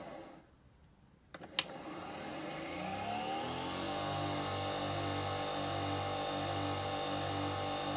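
Nespresso Vertuo Next coffee machine running its cleaning cycle. It goes briefly quiet, gives two clicks, then winds up in a rising whir and settles into a steady, slightly pulsing mechanical hum.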